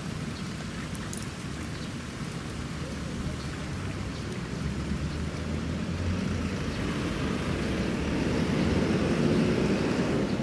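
Shallow water lightly splashing and trickling as a Pembroke Welsh corgi wades into a pond. A low rumble runs underneath and swells toward the end.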